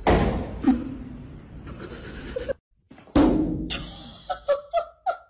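Two loud drum-like booms, one at the start and another about three seconds in, each dying away over a couple of seconds. Short voice-like sounds come near the end.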